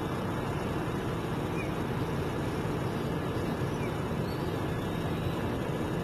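Steady low rumbling noise outdoors, with a few faint short chirps.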